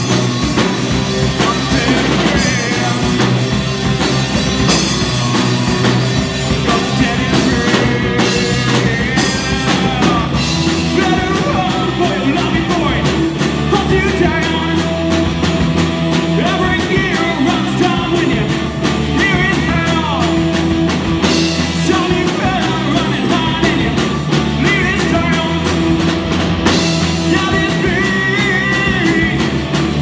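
Live rock band playing loud: electric guitar, bass guitar and a Yamaha drum kit.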